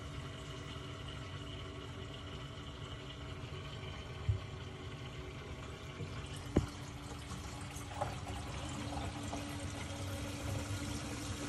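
Water pouring and splashing into a saltwater aquarium's filter area, with a faint steady hum beneath it. Two short knocks about four and six and a half seconds in, and the flow grows a little fuller near the end.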